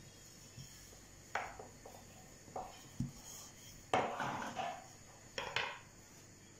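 Thin wooden rolling pin rolling out a round of dough on a table: a few light knocks of wood on the tabletop, a longer rubbing, rolling sound about four seconds in, and a last pair of knocks about five and a half seconds in.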